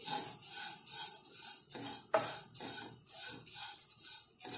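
Wooden spatula stirring flattened rice (poha) as it dry-roasts in a non-stick kadai: rustling scrapes about three a second, with a sharper knock of the spatula about two seconds in.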